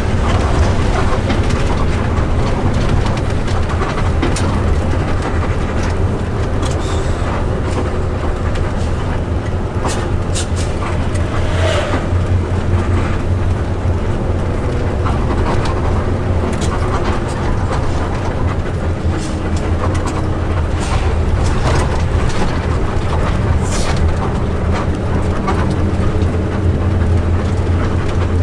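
ALS intercity bus on the move: a steady low engine and road rumble, with occasional brief rattles and knocks.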